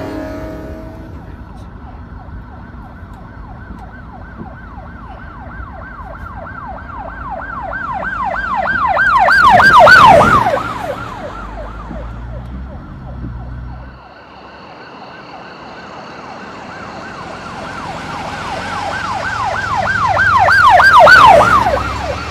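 Emergency vehicle siren on a fast yelp, about four cycles a second, swelling to a loud peak and fading as it passes. It breaks off suddenly, then starts again and swells to a second peak near the end.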